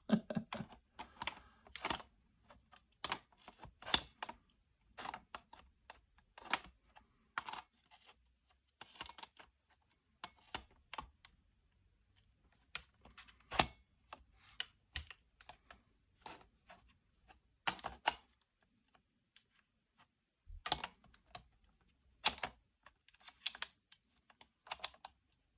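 Irregular clicks and light knocks of hard parts being handled and fitted together: risers and a mount being attached to an airsoft rifle's rail.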